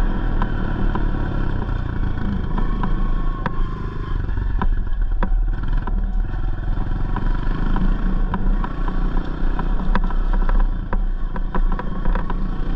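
Honda 125 dirt bike engine running steadily as the bike is ridden along a dirt track, with frequent sharp clicks and rattles over it.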